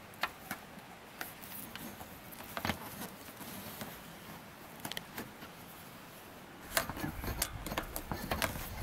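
Light clicks and scrapes of solar-panel cables being worked by hand through a minivan door's rubber seal, a few scattered ones at first, then a busier run of clicks with a low rumble in the last couple of seconds.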